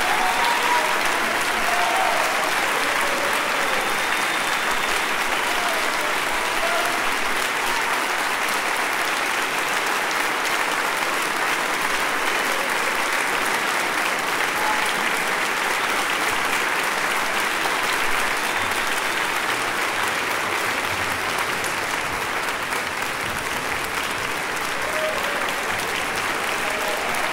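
Large concert-hall audience applauding steadily in ovation, with a few voices calling out over the clapping near the start and the end.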